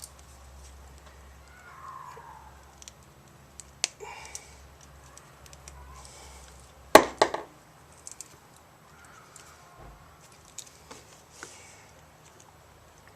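Scattered small clicks and taps of hand tools and plug parts being handled while an extension-cord plug is wired, with one sharper click about four seconds in and the loudest knock about seven seconds in.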